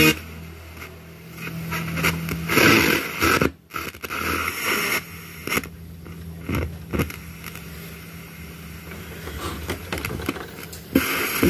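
Radio static from a Telesonic 1400 N boombox's speaker: a hiss with crackles and clicks over a steady low hum, swelling louder twice, with no programme coming through.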